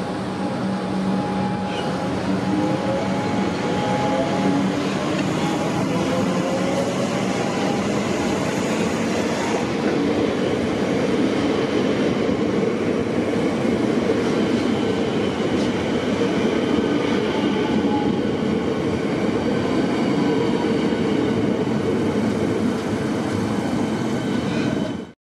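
Electric suburban train running alongside the platform at close range: steady wheel and rail noise with the traction motors whining, their pitch sliding in the first few seconds. The sound cuts off suddenly near the end.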